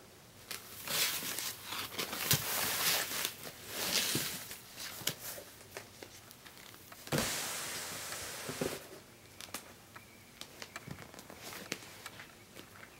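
White packing paper rustling and crinkling as it is pulled out of a cardboard box, in a run of short rustles, then one longer rustle about seven seconds in. Lighter taps and handling clicks follow as the doll is lifted out.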